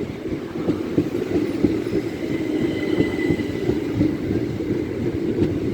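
Train running through the station, its wheels clattering steadily over rail joints and points, with a faint high wheel squeal for a second or so about two seconds in.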